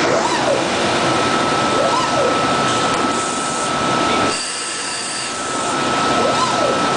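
A CNC router runs with its vacuum hold-down pump and dust collector going as a steady loud rush with a thin steady whine above it. Three times, near the start, about two seconds in and near the end, a short motor whine rises and falls in pitch as the machine moves.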